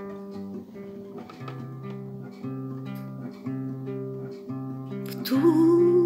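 Instrumental passage of a French Christian hymn: a guitar plays chords over a bass note that changes about once a second. Near the end a singing voice comes back in and the music gets louder.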